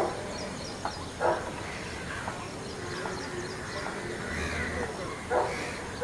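A few short, harsh animal calls: one right at the start, one just after a second in, and another near the end. Faint, high chirping of small birds runs underneath.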